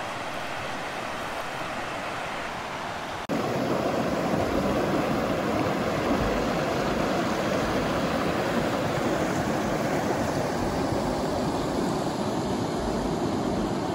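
Steady rush of a creek's flowing water. It jumps abruptly louder about three seconds in, then stays even.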